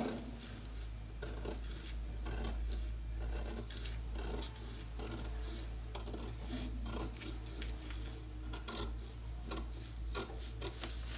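Scissors cutting through a paper bodice pattern along a newly drawn neckline, irregular snipping and scraping strokes over a low steady hum.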